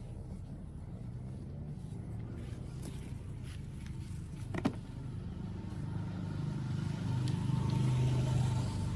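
An engine running steadily with a low hum that grows louder in the last few seconds. A single sharp click comes about four and a half seconds in.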